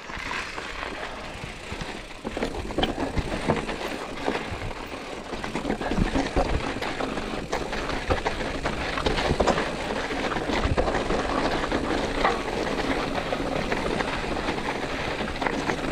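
Mountain bike descending a loose, rocky trail: tyres crunching over gravel and stones, with frequent clattering knocks from the bike. It grows louder about two seconds in.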